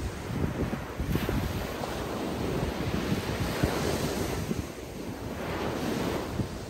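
Atlantic surf breaking and washing up the beach in a steady rush, with wind buffeting the microphone in low rumbles.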